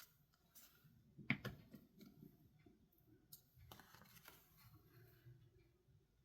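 Quiet handling of paper planner pages and tabs: a few small taps and clicks, the loudest about a second and a half in and another cluster around four seconds.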